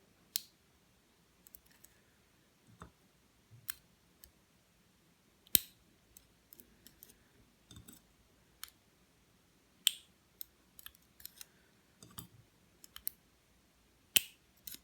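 Scattered sharp clicks and taps of small lock parts being handled as a Master Lock No. 3 padlock is taken apart, about a dozen at irregular intervals, a few louder than the rest.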